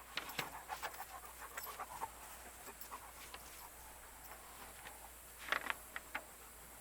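A dog panting in quick, uneven breaths, in two spells: through the first two seconds and again for a moment around five and a half seconds in.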